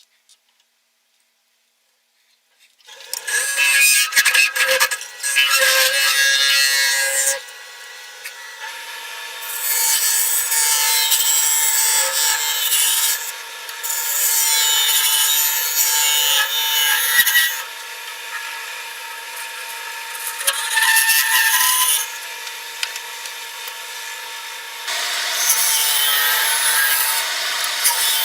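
Wood lathe spinning a wooden bowl blank with a steady hum, while a tool is pressed against the turning wood in about five loud scraping passes of a few seconds each. Before that, about the first three seconds are near silent.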